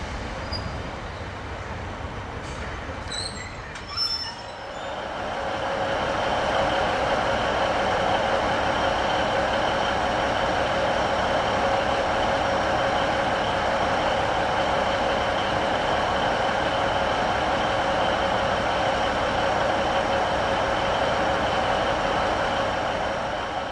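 Class 153 Sprinter diesel railcar coming to a stop with brief high brake squeals and a knock about four seconds in, then standing with its underfloor Cummins diesel engine idling: a steady hum with a constant whine.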